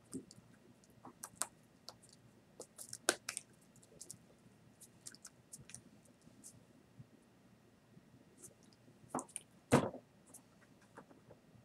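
Scattered soft clicks and taps from a person moving and signing at a desk, with a louder knock near the end.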